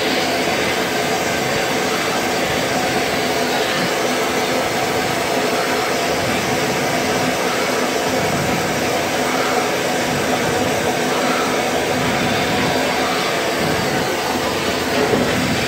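Vapor Honing Technologies Weekend Warrior vapor honing cabinet blasting: compressed air driving a water-and-abrasive slurry through the blast gun, a steady loud rushing hiss with a steady hum beneath it.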